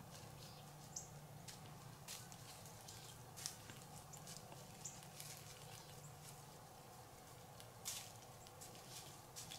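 Deer feeding at close range: faint scattered crunches and ticks of chewing and stepping, over a quiet background.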